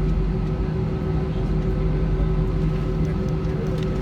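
Airbus A320 jet engines running, heard from inside the passenger cabin as a steady drone with several constant hums.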